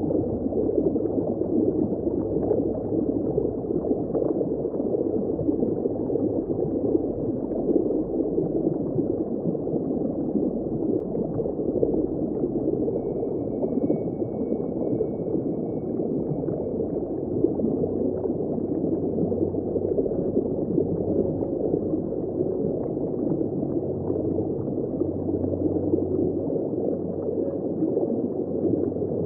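Underwater ambience: a steady, muffled rush of moving seawater heard from below the surface, dull and without any high end.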